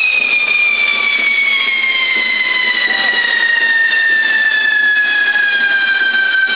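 Fireworks on a toro de fuego, a frame of fountains carried by a runner, hissing steadily as they spray sparks. Over the hiss, one long whistle falls slowly in pitch.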